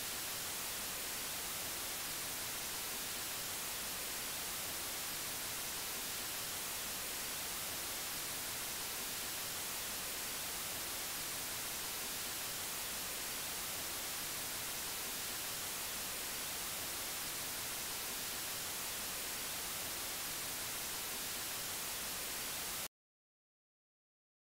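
Steady white-noise static hiss, flat and unchanging, that cuts off suddenly near the end into dead silence.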